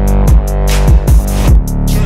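Electronic dance music with heavy bass synth notes, a steady drum-machine beat and fast hi-hat ticks.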